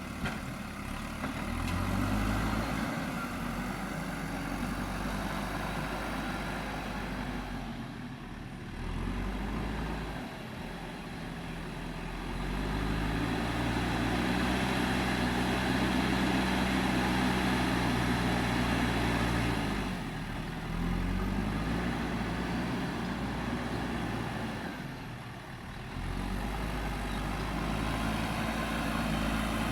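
Diesel engine of a JCB 3DX backhoe loader running under working load. Its revs rise about a third of the way through and hold high for several seconds, then drop back, with further brief dips in engine speed as the machine digs and loads.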